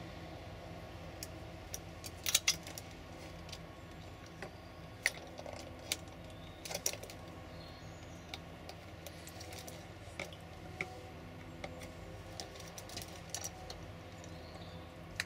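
A crow's beak and feet tapping and clicking on a window sill and a glass water dish as it pecks and dunks its food: scattered light clicks, the sharpest cluster about two seconds in, over a steady low hum.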